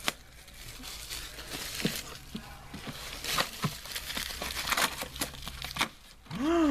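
Topps Strata card packaging crinkling and tearing in many quick, irregular crackles as the wrapping and packs are torn open by hand.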